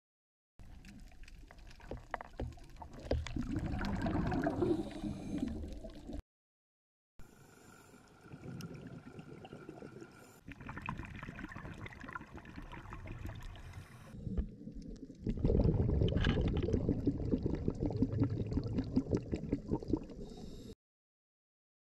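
Scuba diver's exhaust bubbles gurgling and crackling underwater, in several short clips separated by brief silences. The bubbling is loudest about three to six seconds in and again from about fifteen to twenty seconds in.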